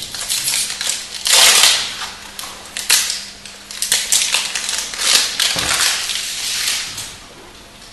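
Foil wrapper of a Magic: The Gathering booster pack being torn open and crinkled: a run of loud crackling rustles, the longest about a second and a half in, with a dull thud a little past halfway.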